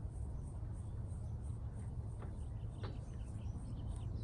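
Quiet outdoor ambience: a steady low rumble, with faint high chirps repeating about three times a second. Two faint clicks come about two and three seconds in as hands work a plastic wire-tap splice connector.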